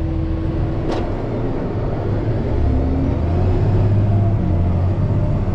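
Engine of a snow-plowing machine running while pushing snow, a steady low rumble that gets louder about halfway through as it works harder, with a single sharp knock about a second in.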